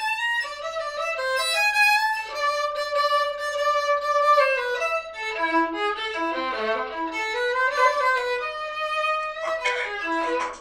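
Solo violin playing a melodic passage of bowed notes, with a run that steps down to the lower strings about six seconds in and climbs back up.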